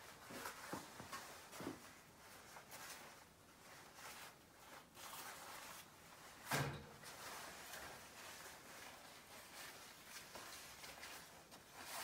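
Faint rustling and handling of winter clothes and gloves, with a few light clicks in the first two seconds and one sharper knock about six and a half seconds in.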